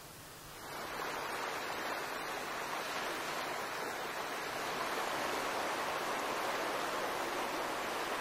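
River water rushing over shallow rapids: a steady rush that comes in about a second in.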